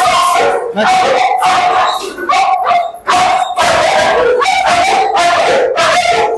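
Several Siberian huskies barking and howling over one another, loud pitched calls following each other with barely a break.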